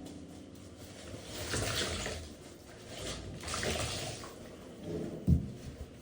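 Water splashing as bath mats are washed by hand, swelling twice, with a low thump near the end.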